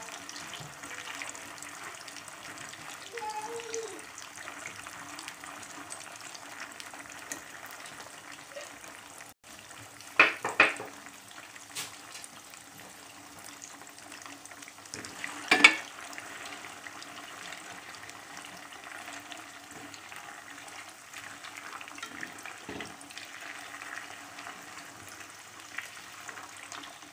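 Potato sticks deep-frying in hot oil in a kadhai on their first, par-cooking fry, with a steady sizzle. A wire spider skimmer is stirred through them and knocks sharply against the pan twice about ten seconds in and once more around fifteen seconds.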